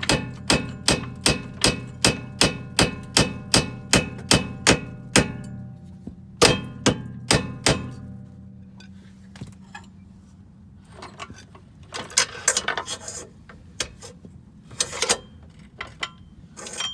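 Hammer blows ringing on steel suspension parts: a fast, even run of about three strikes a second for some five seconds, then four more blows, then scattered clanks and rattles of metal.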